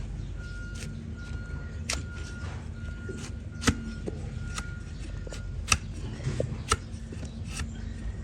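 Sharp, irregular cracks and snaps of a donkey's hoof being cut during trimming, a few seconds apart, the loudest just under halfway through.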